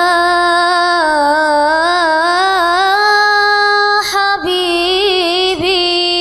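A single unaccompanied voice singing an Islamic sholawat, holding one long, ornamented note whose pitch wavers and turns, with two brief breaks near the end.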